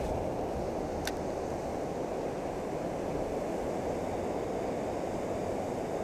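Steady rush of river water pouring over a low-head dam, with one faint click about a second in.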